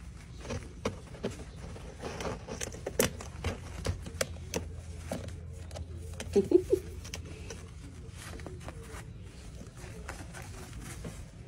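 Pet armadillo rooting in soft bedding while a hand strokes its shell: rustling with scattered sharp clicks and taps, and a short low voice-like sound about six and a half seconds in.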